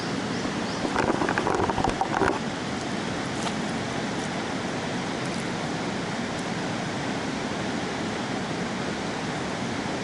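Steady rush of river water, with a brief louder stretch of splashing noise about a second in.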